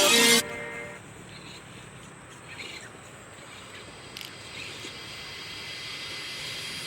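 Background music cuts off shortly in, leaving faint outdoor ambience: a steady, quiet hiss with a thin high whine like insects.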